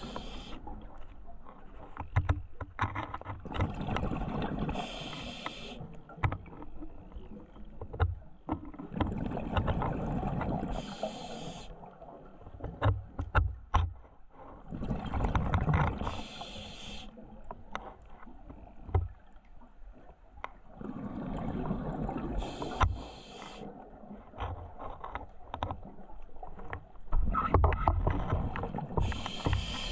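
Scuba diver breathing underwater through a regulator: a regular cycle of about five breaths, one every six seconds. Each breath is a rush of exhaled bubbles and a short high hiss from the regulator.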